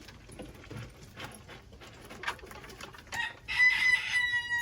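Rooster crowing: one long crow begins about three seconds in and is held on a steady pitch. A few faint taps come before it.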